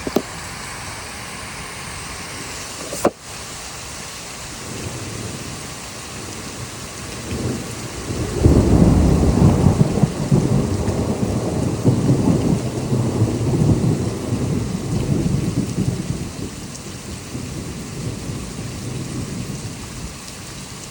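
Steady rain with a long roll of thunder that builds about eight seconds in, is loudest for a couple of seconds, then rumbles on and fades over the next ten seconds. A single sharp click about three seconds in.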